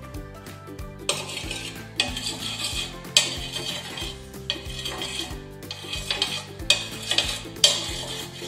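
A steel spoon scrapes and taps in the cavities of a hot non-stick appe pan as oil is spooned into each one. It makes a short hissy scrape-and-sizzle about once a second.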